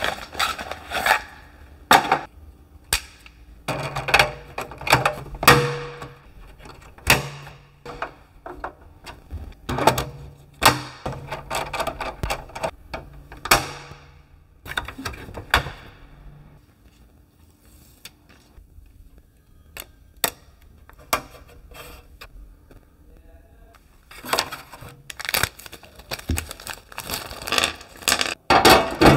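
Hand work on an electrical consumer unit: a run of sharp clicks, knocks and clatter as breaker parts, packaging and screws are handled. A low hum comes and goes through the first half, and the clatter thins out for a while before picking up again near the end.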